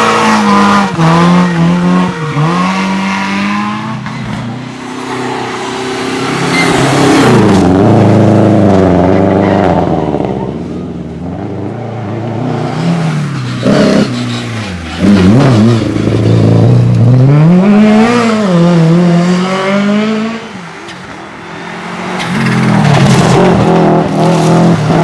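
Rally car engines at full throttle, the revs climbing and dropping again and again through gear changes and braking. The sound swells and fades several times as cars come close and pull away.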